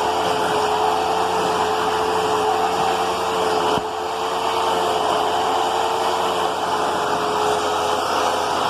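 Hoover Twin Chamber bagless upright vacuum cleaner running with its selector set to cleaning tools: a steady motor whine over a rush of air. The level dips briefly about four seconds in.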